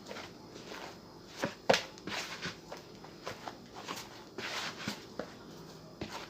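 Hands kneading a soft yeast dough that is left slightly sticky to the hand, giving irregular slaps and taps, the sharpest about a second and a half in.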